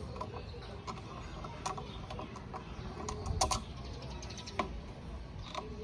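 Irregular light clicks and knocks over a low steady background noise.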